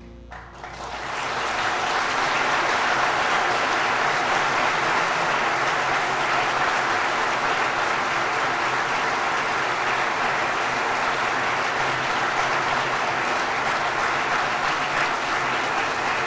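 Audience applauding: the clapping starts about half a second in, swells within a couple of seconds and then holds steady.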